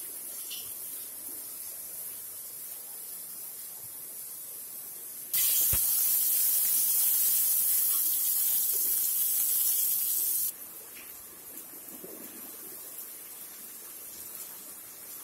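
Shallots and garlic cloves sizzling in hot oil in a pan. The loud sizzle starts suddenly about a third of the way in and cuts off about five seconds later. Only a faint steady hiss comes before and after it.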